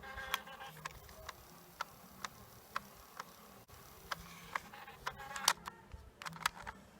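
Sharp, irregular clicks and ticks of small mechanical parts being handled, about a dozen over several seconds, the loudest a little past five seconds in.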